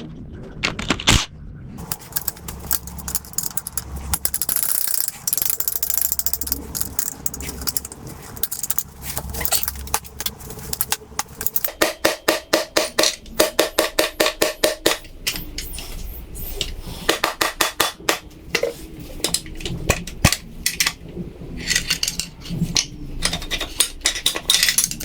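Hand ratchet wrench clicking in runs of quick, evenly spaced clicks, with metal tool clinks, as the connecting rod cap bolts of a rusted FE Ford V8 are loosened for pulling the rods and pistons.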